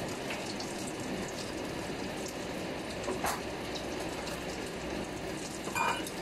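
A steady, even hiss in the background, with a light click about three seconds in and a ceramic bowl clinking near the end.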